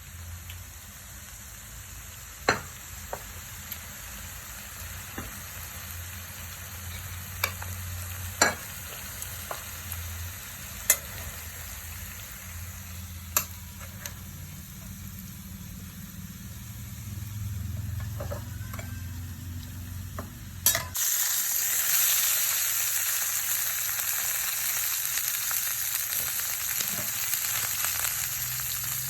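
Food sizzling as it fries, with sharp clicks and taps of a utensil over a low hum. About three-quarters of the way through, the sizzle suddenly becomes much louder and stays that way.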